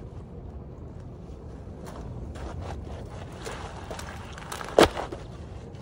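A large rock being tipped over on a stony shore: scattered small clicks and scrapes, then one sharp, loud knock of rock on stone near the end. Wind rumbles on the microphone throughout.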